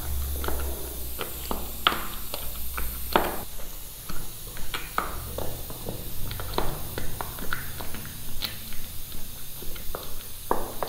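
Irregular knocks and taps of a kitchen utensil against a dish, about two or three a second, as roasted eggplant and tomato are pressed and mashed into achar.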